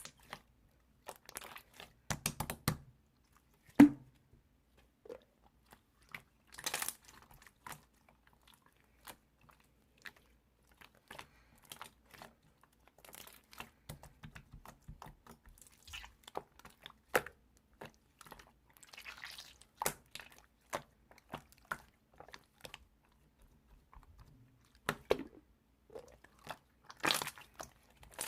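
Blue slime being squished and worked by hand, giving irregular sticky clicks, small pops and crackles, with a few louder pops scattered through.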